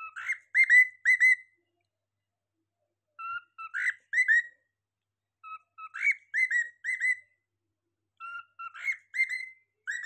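A cockatiel whistling the same short phrase four times, with gaps of a second or so between: each phrase starts on a lower note and runs into three or four quick, higher chirping notes.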